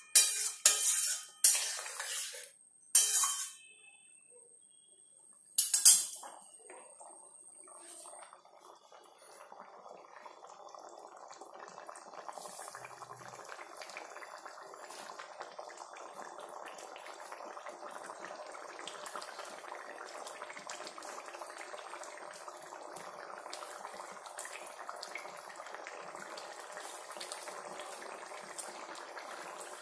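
A metal spatula clatters and scrapes against an aluminium kadai several times in the first few seconds, with one more knock about six seconds in. After that, potato curry simmers in the pan with a steady crackling bubble that grows slowly louder.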